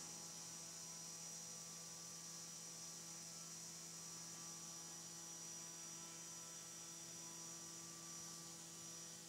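Faint steady hum: a low tone with a few higher overtones and a thin high whine over light hiss, unchanging throughout.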